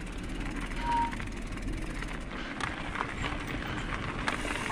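Mountain bike rolling along a dirt singletrack: steady tyre and trail noise with scattered clicks and rattles from the bike. A brief high tone sounds about a second in.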